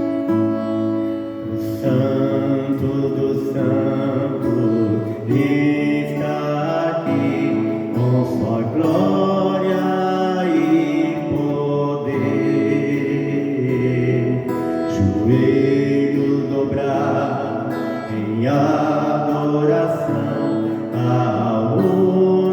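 Music: a worship song sung with drawn-out notes over instrumental accompaniment, played through a church sound system.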